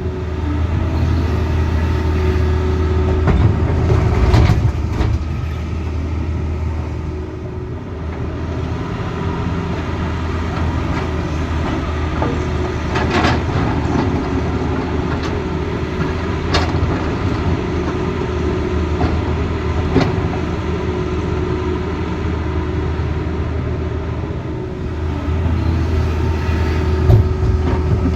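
Tata Hitachi Zaxis excavator's diesel engine running steadily, swelling in loudness twice, with a few sharp knocks along the way.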